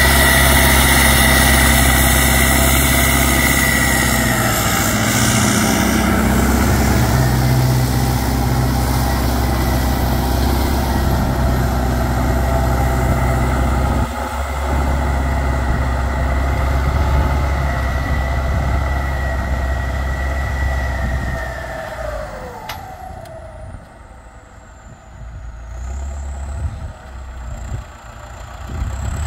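Belarus MTZ 1025.4 tractor's turbocharged diesel engine running hard through a straight-pipe exhaust, with a high turbo whistle over it. About 22 seconds in the throttle comes off: the whistle and engine note fall away and the engine settles toward idle, then picks up a little near the end.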